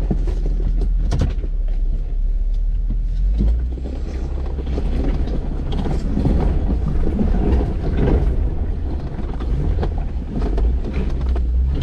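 Off-road vehicle driving over rough ground: a steady low rumble with scattered knocks and rattles.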